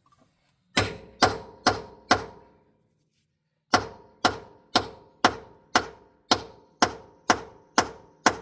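Hammer blows on a seized, torch-heated tractor rim bolt: four strikes about two a second, a short pause, then ten more at the same pace, each leaving a metallic ring. The bolt is being driven out and is not giving.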